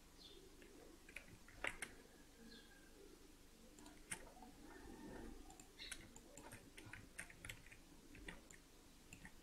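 Near silence with scattered faint clicks from a computer mouse and keyboard, a few spread out at first and then a denser run of them after the middle.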